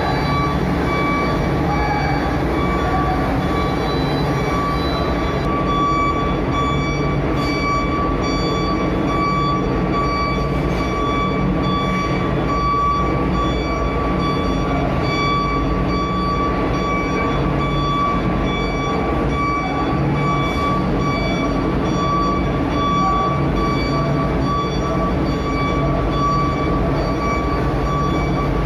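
Heavy engine rumble from trucks on a ferry's vehicle deck, steady throughout, with a constant high-pitched whine over it.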